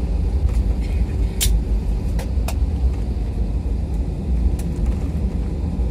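Cabin rumble of an Airbus A320-family airliner rolling out on the runway just after touchdown: a steady, deep rumble of wheels and engines while the aircraft slows, with a few sharp clicks and rattles in the cabin.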